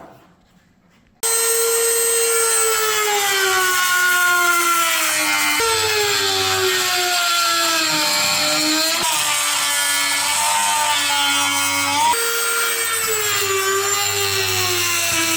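A handheld power tool starts about a second in and runs continuously, cutting away the marked sections of the plastic mounting piece. Its motor whine sags in pitch as it bites in and jumps back up twice when the load comes off.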